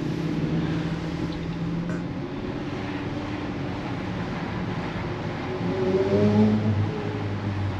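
Pagani Zonda F's Mercedes-AMG V12 engine running ahead of a following car, a steady low note that rises in pitch and grows louder about six seconds in as it accelerates.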